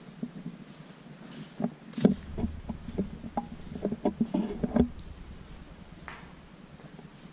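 Footsteps and scuffs on a basement floor: a run of irregular knocks and thuds, densest between about two and five seconds in, with a heavier low thump about two seconds in.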